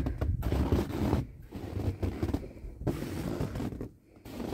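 Wind buffeting the microphone in uneven gusts, with brief lulls between them.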